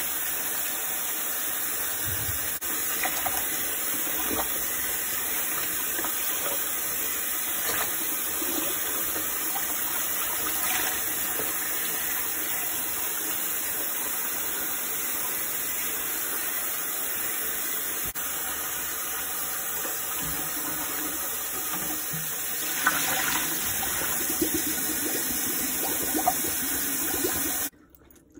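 Kitchen faucet running steadily into a plastic tub of soapy water as a wet leather handbag is handled in it. The splashing grows louder near the end, then the water noise cuts off suddenly.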